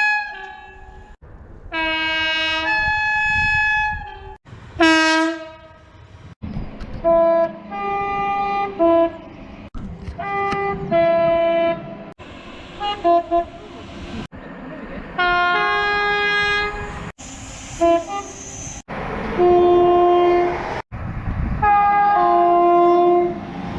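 Train horns sounding in a rapid series of separate short recordings, about ten in all, each cut off abruptly before the next begins. Most are two-tone horns switching between a lower and a higher note within a blast of a second or two. Around five seconds in, one short blast slides down in pitch.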